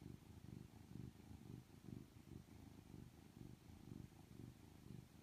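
Domestic cat purring close to the microphone: a faint, low, continuous rumble that pulses in a steady rhythm.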